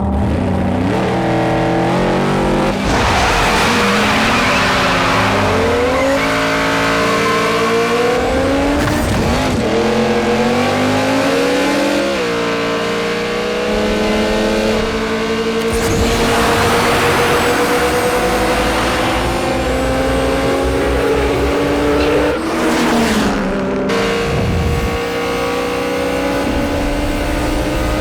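Drag-racing cars, a Toyota Supra and a Dodge Charger, accelerating flat out: engine notes climb in pitch and drop back at each upshift, over and over, with tires squealing.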